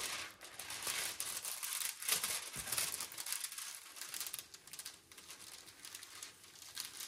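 Crinkling and rustling of a diamond painting canvas and its plastic packaging being handled, busiest in the first few seconds and fading after about four seconds.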